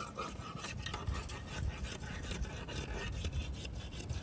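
Rapid, continuous rasping and scraping of a rod working in the mud of a flooded mud crab burrow.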